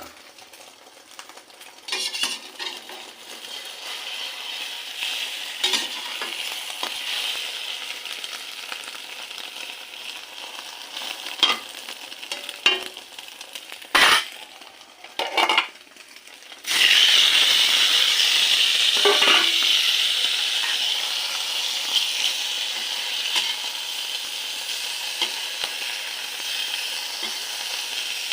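Egg sizzling in hot oil in a frying pan, the oil left from frying dried fish, with a spatula knocking and scraping against the pan now and then. About two-thirds of the way through the sizzling suddenly gets louder and stays loud.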